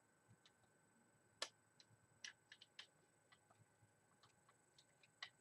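Faint, irregular small clicks and ticks of a screwdriver driving a fan screw into the plastic mounting hole of a computer cooling fan.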